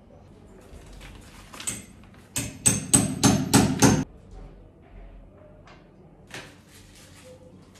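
Hammer blows on a hard surface: a single strike, then a quick run of about six strikes at roughly three a second, each with a brief metallic ring.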